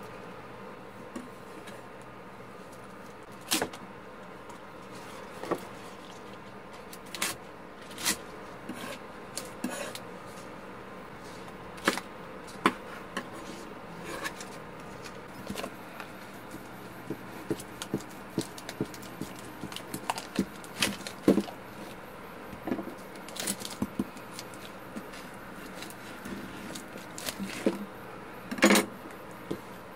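Kitchen knife cutting green onions on a wooden cutting board: irregular sharp knocks scattered through, with handling of vegetables and the pot, over a steady faint hum. A louder burst of rustling and scraping comes near the end.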